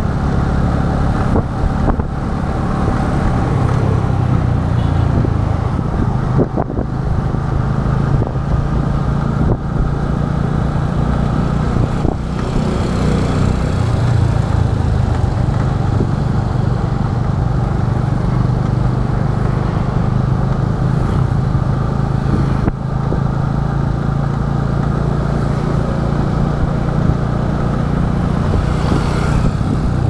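Small motorcycle engine running steadily at cruising speed, heard from the rider's seat, with a brief swell of hiss about halfway through and again near the end.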